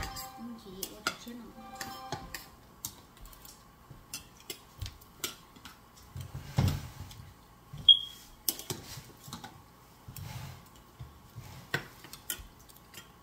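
Metal spoons and forks clinking and scraping against ceramic plates and bowls during a meal, in scattered irregular clicks. One brighter clink rings briefly about two-thirds of the way in, the loudest sound.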